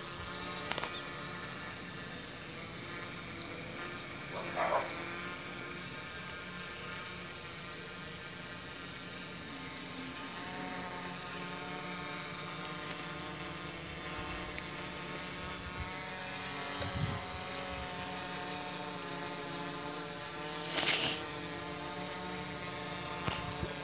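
F450 quadcopter drone hovering overhead, its motors and propellers making a steady, multi-toned hum. A few short, louder sounds break in briefly, about five seconds in and again near the end.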